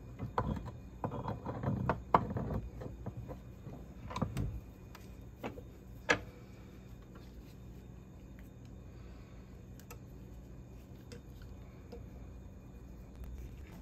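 Handling sounds at a bench vise: scattered light clicks and knocks of a hydraulic steering cylinder's metal end cap being moved and turned over for about the first six seconds, then faint steady room tone.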